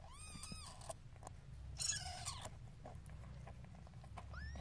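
Newborn kittens squeaking: a quick run of thin, high mews right at the start and a rising squeak near the end, with faint soft clicks and rustling in between as the mother cat licks and nuzzles the wet litter.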